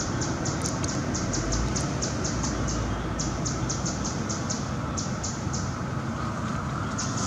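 Outdoor ambience: a steady noisy hum under a rapid, regular high-pitched chirping of about five or six pulses a second, which breaks off briefly a few seconds in and again for over a second near the end.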